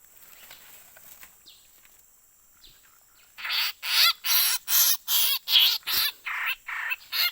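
A bird caught in a trap squawking in a rapid series of loud, short calls, about two to three a second, starting about three and a half seconds in.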